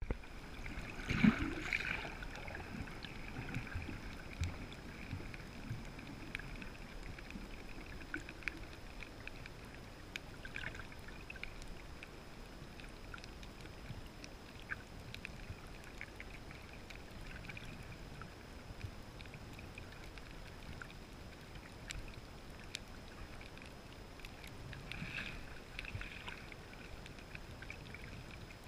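Underwater sound heard through an action camera's waterproof housing: a low, steady, muffled water noise with scattered faint clicks and crackles throughout. A louder rush of noise comes about a second in.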